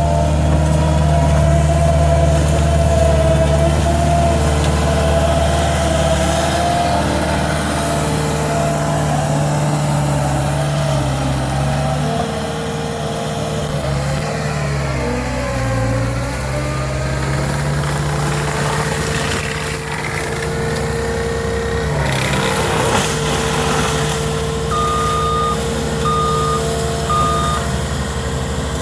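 CAT skid steer loader's diesel engine running steadily, its pitch dipping and recovering about halfway through as it takes load. Near the end its reversing alarm beeps three times.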